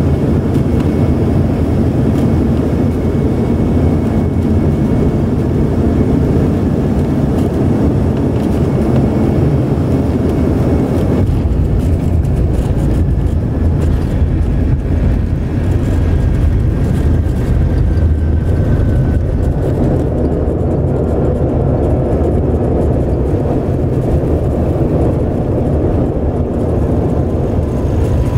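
Airliner cabin noise on landing: steady engine and air rush on final approach. About eleven seconds in it turns abruptly deeper as the plane is on the runway, then a low rumble with a faint, slowly falling whine as it rolls out and slows.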